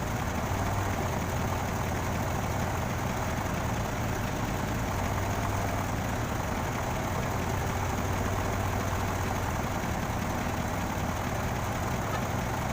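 Heavy engine of a crane idling steadily, a constant low hum with no change in speed.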